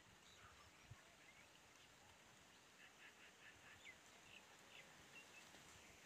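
Near silence: faint outdoor background with scattered faint high chirps, a quick run of them about three seconds in.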